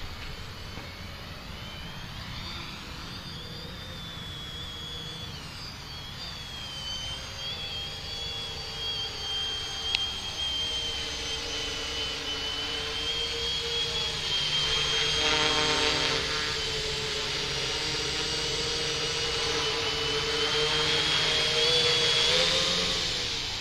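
Hobbyking Talon V1 quadcopter's four brushless motors and propellers whining in flight, the high pitch wavering up and down as it manoeuvres. It grows louder as the quad comes close overhead in the second half, then fades near the end. A single sharp click about ten seconds in.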